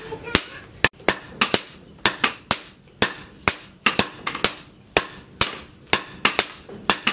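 Hammer blows on red-hot leaf-spring steel laid on an anvil, about three sharp, ringing strikes a second, some coming in quick pairs.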